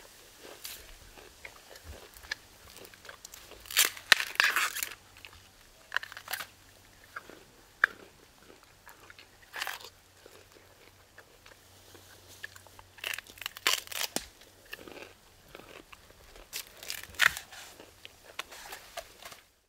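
Mountain gorillas crunching and chewing on fresh plant stems, in irregular bursts of crunching, the loudest about four seconds in and again twice in the second half.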